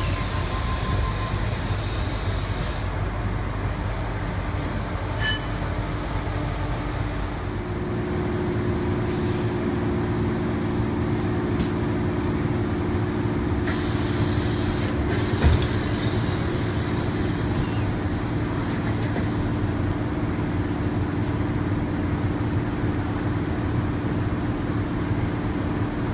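Inside a Tangara electric train carriage with its new lightweight plug doors shut: a low running rumble gives way, about seven and a half seconds in, to a steady electrical hum as the train stands. About halfway through, a short hiss of air and a thump as the doors release and open.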